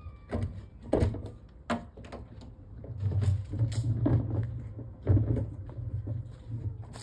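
Footsteps and knocks from a hand-held phone while walking on pavement, a short knock about every 0.7 s at first; from about three seconds in a low rumble joins them.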